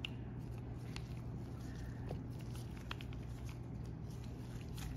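Faint clicks and scrapes of plastic sprayer pump parts handled in nitrile-gloved hands as a tabbed ring is fitted onto the plunger, over a steady low hum.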